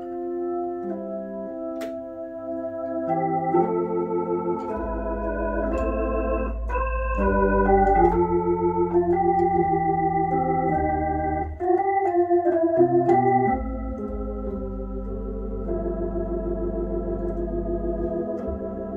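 Hammond H112 tonewheel console organ playing sustained chords on a theatre-style tibia registration, with a wavering shimmer on the held notes. Deep pedal bass notes come in about five seconds in, drop out briefly around twelve seconds and stop near the end.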